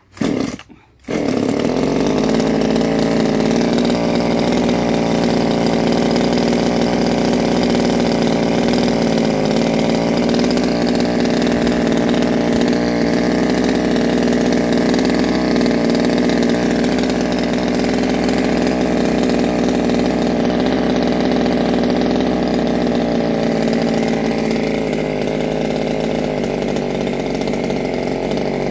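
Demon CS-2500 top-handle two-stroke chainsaw engine running steadily after a brief first burst, not cutting, while its carburetor's T and L screws are being adjusted; its note shifts slightly about three-quarters of the way in.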